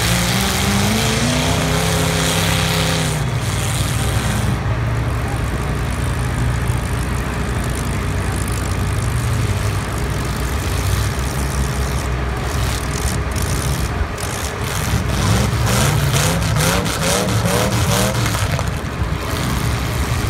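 Engines of several demolition derby cars running hard in the arena, revving up in pitch near the start and again several times in the last few seconds.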